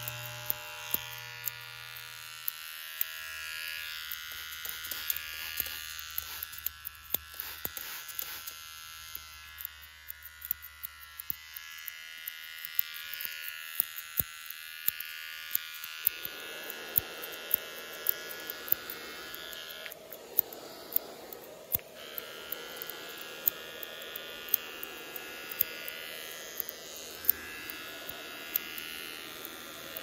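Barber shop sound effects: an electric barber's trimmer buzzing steadily, with many sharp clicks scattered throughout. A low hum drops out about two seconds in, and a fuller, lower buzz joins about halfway through.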